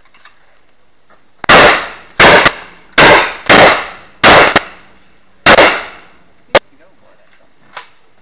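Handgun fired six times in a string over about four seconds, shots half a second to a second apart, each with a short echoing tail. About a second after the last, one sharper, shorter crack.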